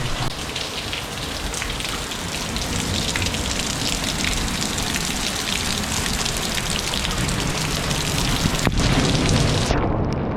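Heavy storm downpour: torrential rain falling steadily, a dense hiss full of individual drop hits. Just before the end the high hiss suddenly drops away.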